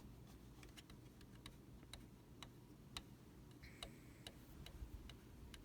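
Near silence: room tone with faint, regular ticking, about two ticks a second.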